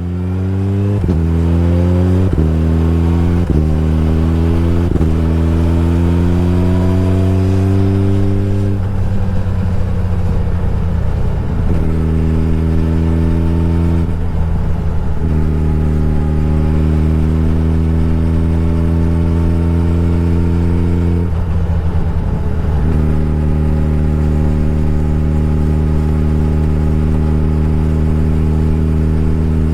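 Suzuki Hayabusa's inline-four engine pulling away: its note climbs steadily through the first several seconds, with a few short clicks along the way. It then settles into a steady cruising drone, which breaks into a rougher, noisier sound three times as the throttle is eased.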